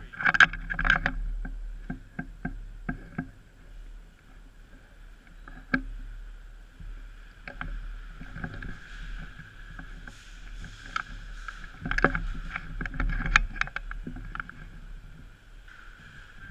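Scattered sharp clicks and knocks over a steady hum, coming in clusters, with the densest run about twelve to thirteen seconds in.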